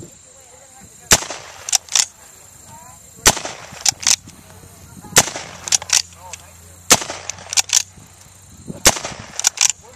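1860 Henry lever-action rifle firing .44-40 blank cartridges: five shots about two seconds apart. After each shot comes a double metallic clack as the lever is worked to chamber the next round.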